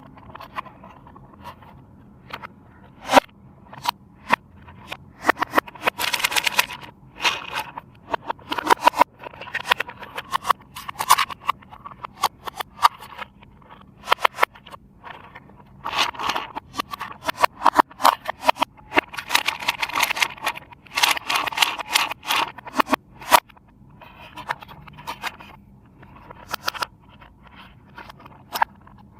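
Hands handling toy packaging and plastic parts: irregular sharp clicks with bursts of rustling and scraping.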